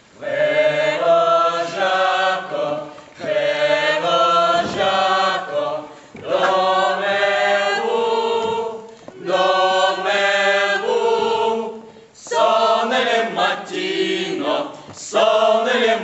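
A group of voices singing together unaccompanied: a slow tune sung in phrases of two to three seconds, with short breaths between them.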